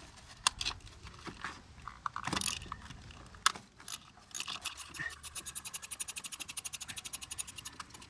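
Hand tools scraping and knocking against metal while a socket is worked onto a starter mounting bolt, then, about five seconds in, a ratchet wrench clicking rapidly and evenly, about ten clicks a second, as the bolt is turned.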